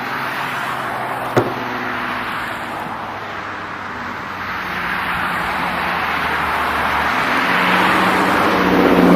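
Car engines running under a steady wash of traffic-like noise, with one sharp click about a second and a half in. Near the end a louder engine note comes in and the sound swells, as of a car drawing closer.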